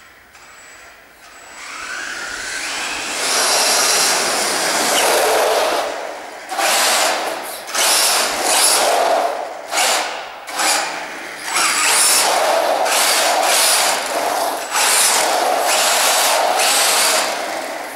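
Radio-controlled 1:10 short-course truck with an Amewi Meteor 9T 4350KV sensorless brushless motor and 60A ESC, running on a 2S LiPo. The motor whine rises about two seconds in, then comes repeated full-throttle bursts that surge and drop off several times.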